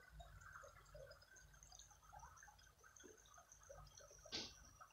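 Near silence: faint room tone with a low hum and one short click near the end.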